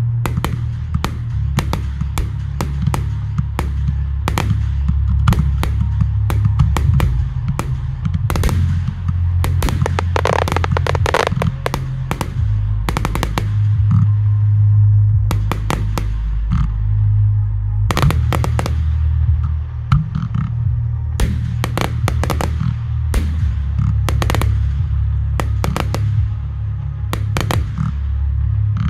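Fireworks display: many sharp bangs and crackling reports from bursting shells and ground effects, thickest in a dense crackling run about ten seconds in. Music with a heavy bass line plays loudly underneath.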